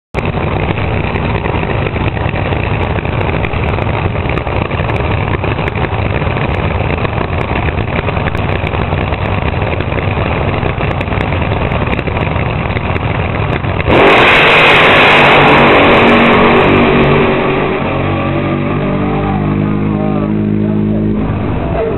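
Nostalgia top fuel dragster engine running loud and rough at the starting line, then a sudden much louder blast at full throttle about fourteen seconds in as the car launches. After about three seconds the blast drops back to a lower, steadier engine sound as the car pulls away down the track.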